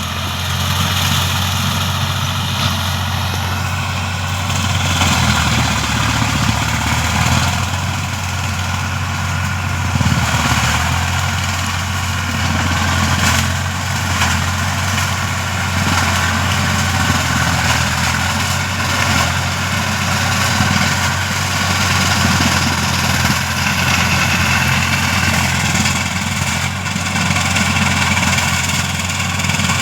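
Swaraj 744 FE tractor's three-cylinder diesel engine running steadily.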